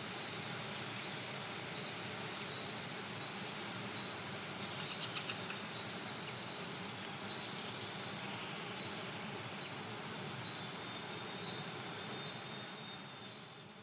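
Morning forest dawn chorus: small birds chirping and singing, with one short rising note repeated about once a second, over a steady background hiss of ambience. It fades out near the end.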